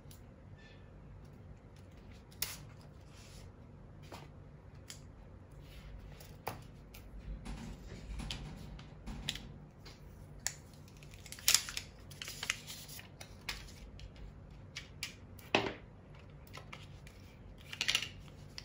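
Hands opening an Apple cardboard product box: soft scraping and rustling of card and paper with many small sharp clicks and taps, as the box is opened, the plastic MagSafe Battery Pack lifted out and the paper inserts handled. A few louder taps stand out, the loudest about eleven and a half and fifteen and a half seconds in.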